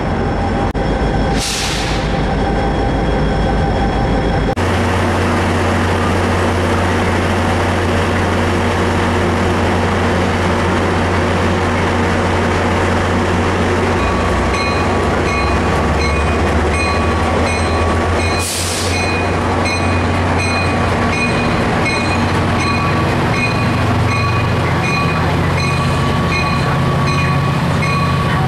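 Diesel-electric commuter locomotives idling with a steady low rumble, broken by two short sharp hisses of air. Later a bell rings in a steady rhythm, and near the end the engine note rises as the train pulls away.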